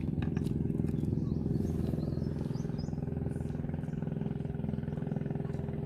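A small engine running steadily at a constant speed, with an even drone and no change in pitch.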